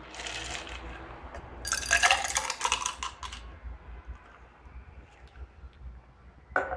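Ice and muddled fruit poured unstrained from a steel cocktail shaker into a glass: a dense rattle of ice clattering into the glass about two seconds in, then a few lighter clinks.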